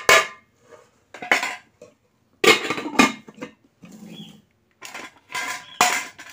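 Fingers mixing and scooping rice on a stainless steel plate, scraping and clinking against the metal in four or five short bursts.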